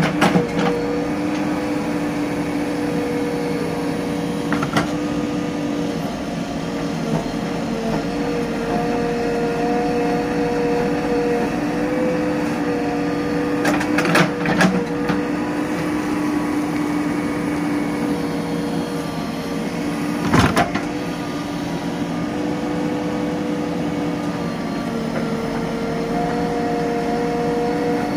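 JCB 3DX backhoe loader's diesel engine running steadily under digging load while the backhoe works a trench, its pitch shifting slightly. A few short sharp knocks come through, a cluster about halfway through and another about two-thirds through.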